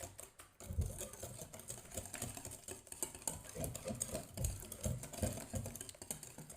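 Hand whisk beating batter quickly in a bowl, a rapid rhythmic clatter of wire against the bowl with soft knocks.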